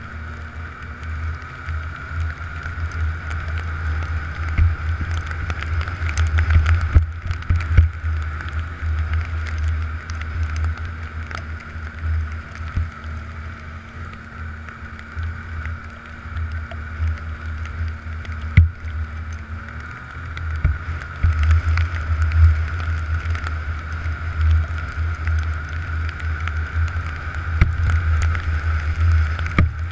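Snowmobile engine running steadily at trail speed under heavy wind buffeting on the microphone, with a few sharp knocks.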